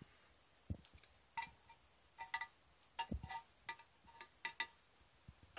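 Light metal clicks and clinks, about a dozen irregular taps with a brief ring to each: a small metal tool touching the valve body plate of a Mercedes 722.6 automatic transmission while its oil channels are probed for loose parts.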